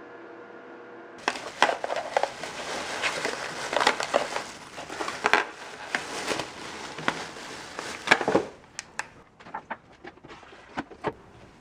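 Plastic packaging crinkling and rustling from about a second in, with many sharp crackles. It thins to a few scattered clicks near the end.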